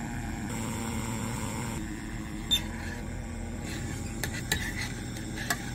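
Small gas canister camping stove burning steadily under a pot of baked beans, with a few light clicks and knocks from about halfway through.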